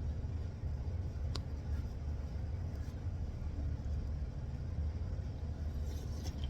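Steady low rumble, with a single sharp click about a second in.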